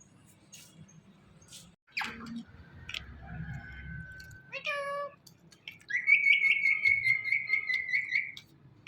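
Ringneck parrot calling and whistling: a sharp falling squawk about two seconds in, a steady whistle, a short call near the middle, then a long wavering whistle, the loudest part, that stops shortly before the end.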